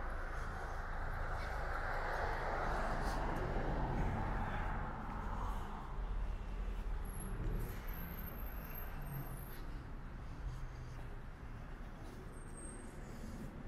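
A road vehicle passing, its noise swelling and then fading away about six seconds in, leaving a low steady traffic rumble.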